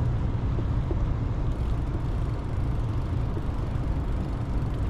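Wind buffeting the microphone: a steady, fluttering low rumble over an even hiss.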